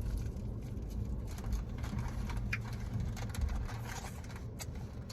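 Low rumble inside a car's cabin, with scattered small clicks and rustles.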